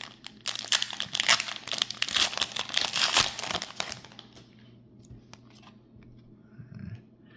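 Foil booster-pack wrapper crinkling and tearing as a pack is opened, dense for the first four seconds, then quieter with a few light clicks.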